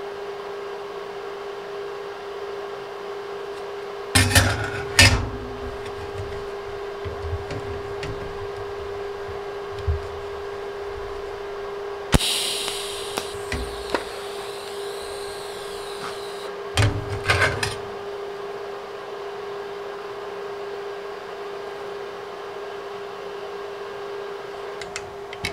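Steady hum throughout, with metal plates knocked and clanked on a metal bench a few times. About twelve seconds in, a TIG arc strikes with a sharp snap and hisses for about four seconds as a tack weld is laid on the plate joint.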